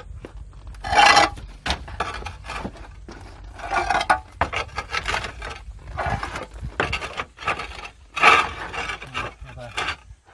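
Rough scraping and rubbing sounds, with four louder scrapes about two seconds apart and small knocks and rustles between them.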